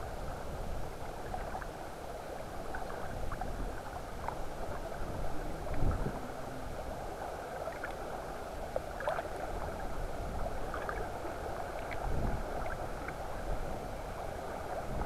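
Muffled underwater water noise of a river picked up by a submerged camera: a steady dull hiss with scattered faint clicks, and two low thumps about six and twelve seconds in.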